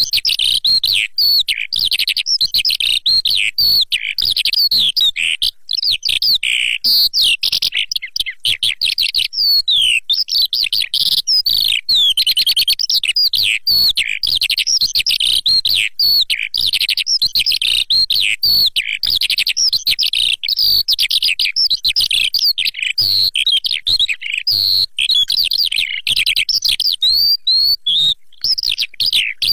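A lark singing nonstop: a loud, dense, fast run of varied chirps and trills with no pauses. This is a recorded song looped as a hunting lure.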